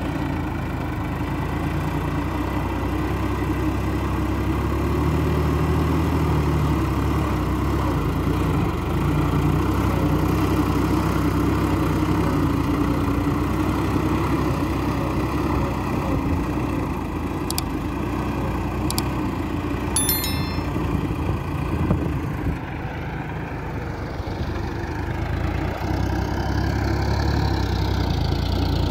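Sonalika Tiger 55 tractor's diesel engine running steadily under load as it drags a rotary tiller through flooded paddy mud.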